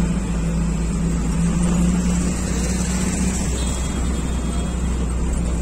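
Engine and road noise of a moving vehicle heard from inside it: a loud, steady low rumble with a steady hum.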